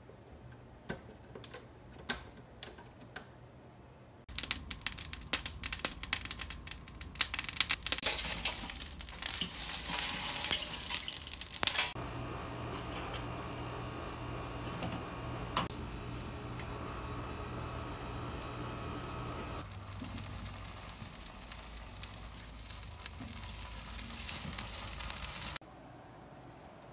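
A few sharp clicks as chicken wings are handled in a wire rotisserie basket, then dense crackling, a steady low hum from the grill's electric rotisserie motor turning the basket, and a hissing sizzle that cuts off suddenly near the end.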